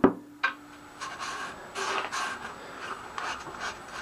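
A sharp knock with a short ringing tone, then light rubbing and handling noises with a few small ticks as objects are handled at a workbench.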